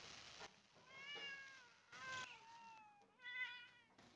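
Hungry cats meowing for food: three drawn-out meows in a row, the middle one trailing off downward in pitch.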